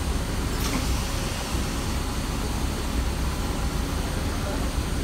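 City bus engine idling while the bus stands at a stop, heard inside the passenger cabin as a steady low rumble under a constant hiss. A single sharp click comes about half a second in.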